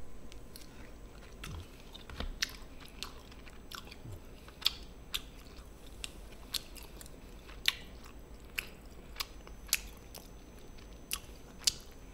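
A person chewing food, with about a dozen sharp, irregular crunching clicks.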